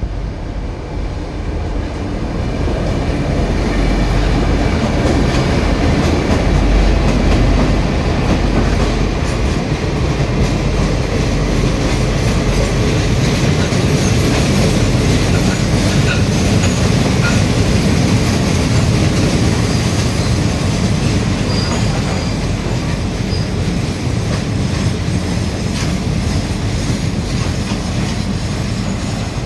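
Freight train of ballast hopper wagons rolling past close by behind a diesel locomotive, wheels clattering over the rail joints with brief high squeals. The rumble swells over the first few seconds, then holds steady.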